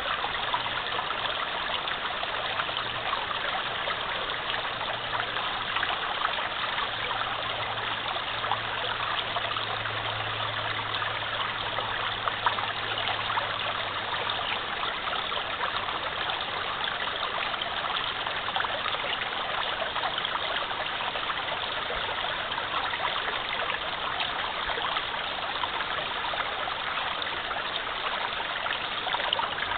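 Small woodland stream flowing steadily over stones, a continuous babbling rush of water. A faint low hum runs underneath during roughly the first half.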